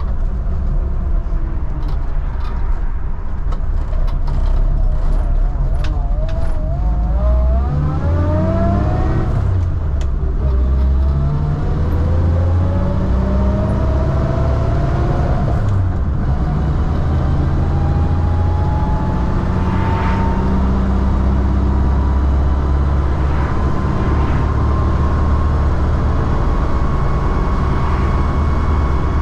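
1952 Willys Wagon under way, its engine running with a whine that climbs in pitch as it picks up speed. The whine drops back and climbs again twice, about ten and sixteen seconds in.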